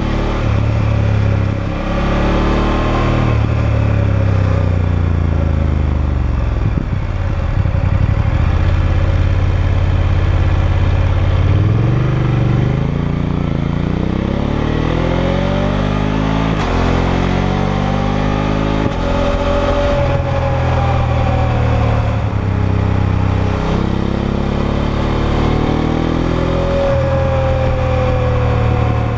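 BMW F850GS's 853 cc parallel-twin engine through its stock exhaust, revving up through the gears and easing off again, the pitch climbing and then dropping at each shift. In the second half the upshifts are clutchless quickshifter shifts, the pitch stepping straight down without a pause. The revs are kept below 6500 rpm while the engine is being run in.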